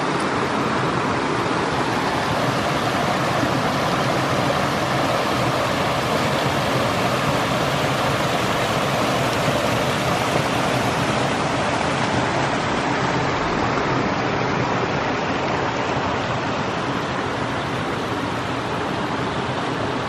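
Waterfall: water pouring and splashing in a steady, unbroken rush.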